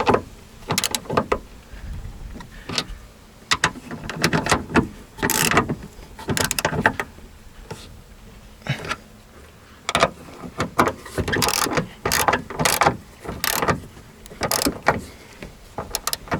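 Ratchet wrench clicking in short bursts, over and over, as three nuts are tightened.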